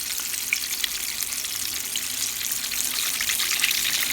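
Chicken legs deep-frying in a pot of hot oil: a steady sizzle with scattered small crackles and pops.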